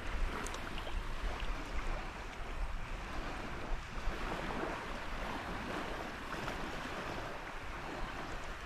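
Wind buffeting the microphone over small waves lapping in shallow seawater, a steady even rush with a low rumble.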